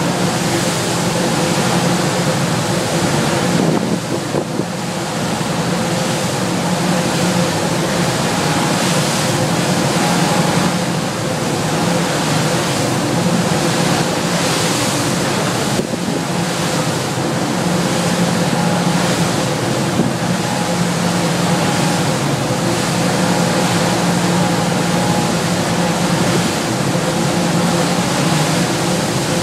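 A Viking sportfishing yacht running at cruising speed on open water. Its engines drone steadily under a constant rush of wind and water past the hull.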